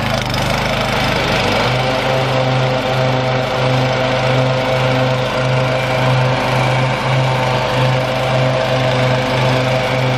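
Gravely Pro 150 mower's Kawasaki FB460V single-cylinder gas engine running steadily. Its note shifts about a second and a half in, then holds with a slow, even throb a little over once a second.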